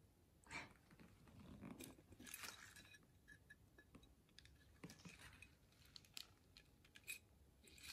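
Faint, scattered crinkling and rustling of bubble wrap and tissue paper as glass ornaments are handled and unwrapped.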